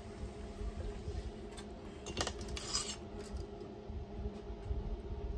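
Metal scraping and clinking against a stainless steel stockpot as a smoked beef roast is tipped into it off a metal sheet pan. The sharpest scrapes come about two seconds in and again just before three seconds.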